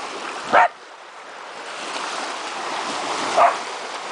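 Small waves washing onto a river shore, with wind on the microphone, growing louder over the last couple of seconds. A dog barks once about half a second in and again, more faintly, near the end.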